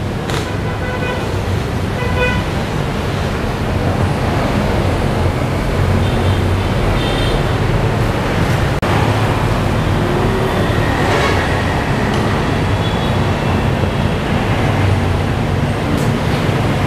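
Steady, loud road-traffic noise of running vehicle engines, with horns tooting briefly now and then, first in the opening seconds and again near the middle and toward the end.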